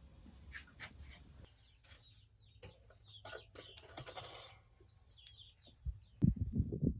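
Chickens clucking with small birds chirping, broken by short clicks, and a few louder low knocks near the end.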